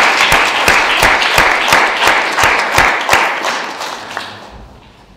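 Audience applauding, with one nearby pair of hands clapping about three times a second above the rest; the applause dies away about four seconds in.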